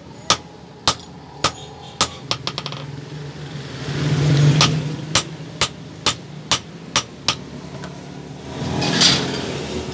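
A hand hammer strikes a red-hot iron bar on a steel anvil block in two runs of sharp blows, about two a second: seven in the first few seconds, then six more after a pause. A low rumble swells about four seconds in, and a louder rushing noise comes near the end.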